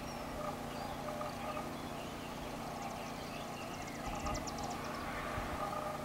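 Faint outdoor field ambience, with a faint high, rapid trill of ticks about three to five seconds in.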